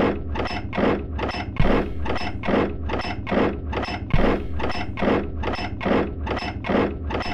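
Rhythmic scraping strokes, a little over two a second, each one a noisy rasp, with a deep thud about a second and a half in and again past four seconds. This is a sound-effect intro to a death metal/grindcore track.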